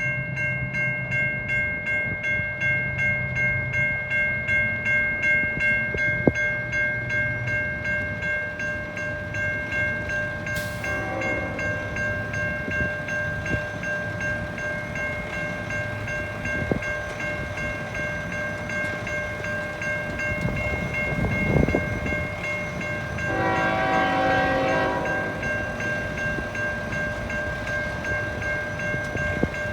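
CN freight locomotive sounding its horn over the rumble of the passing train: one short blast about eleven seconds in and a longer, louder blast of about two seconds later on. A steady, evenly pulsing ringing runs underneath, typical of a level-crossing bell.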